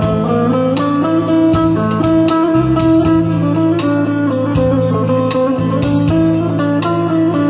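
Instrumental break in a Kurdish folk song: a plucked string instrument plays the melody over a steady drum beat, with no singing.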